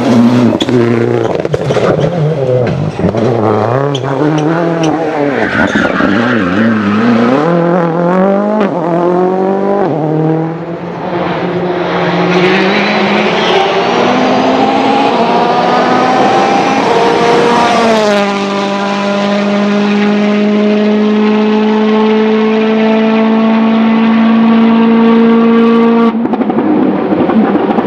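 Rally car engine revving hard, its pitch climbing and dropping again and again through gear changes, with sharp cracks in the first few seconds. About two thirds of the way in the engine settles into a steady high-revving note, which changes shortly before the end.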